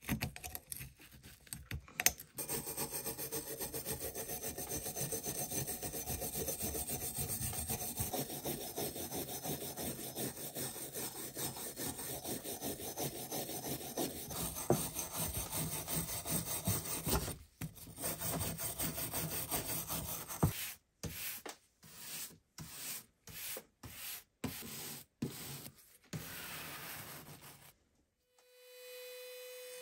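A few scrapes of a pointed hand tool picking rust off an old iron horseshoe. Then a hand wire brush scrubs the rust off in a fast, continuous run of strokes. After about seventeen seconds this breaks into separate short strokes with gaps, and near the end the scrubbing stops and a steady hum takes over.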